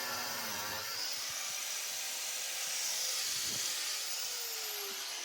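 Angle grinder running, then switched off about a second in and spinning down, its whine falling steadily in pitch as the disc slows.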